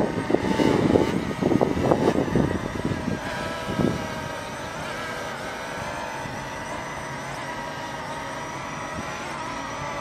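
DJI Mavic Mini drone fitted with Parrot Anafi propellers hovering, its propellers giving a steady high whine with several wavering pitches. A gusty low rumble covers the first three seconds, then dies away.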